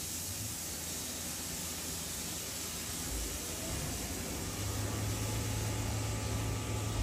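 Hot tap running, a steady hiss of water. About halfway through a low hum joins and the level rises slightly: the Glow-worm Micracom combi boiler starting up to heat the hot water drawn at the tap.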